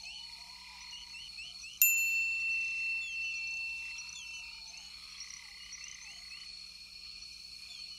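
Morning bush ambience of many birds chirping, with a steady high whine and softer lower calls repeating every couple of seconds. About two seconds in, a single bell-like ding rings out and fades over about two seconds.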